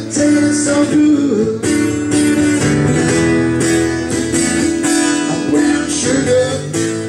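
Background music led by a strummed acoustic guitar, with held notes changing every second or so.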